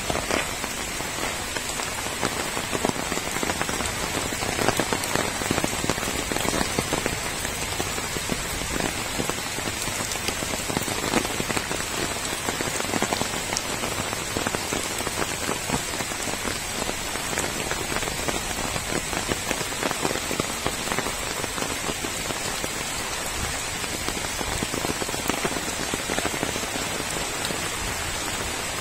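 Steady rain falling on muddy ground, puddles and leaves, with many small drop impacts pattering through it.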